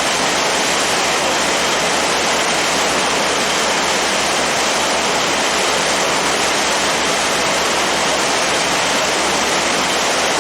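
Steady rushing noise on the deck of a moving passenger boat: wind and water along the hull, with a fast, low, regular throb underneath.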